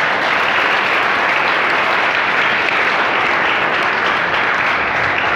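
Seated audience of schoolchildren applauding steadily, dense clapping that starts right after a prize winner is announced.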